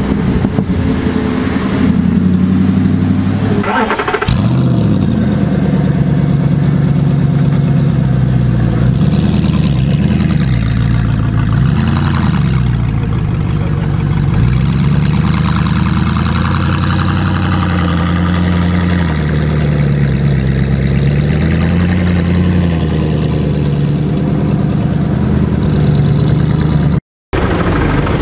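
Car engine running at low revs, its pitch rising and falling, with a quick rev about four seconds in. The sound drops out for a moment near the end.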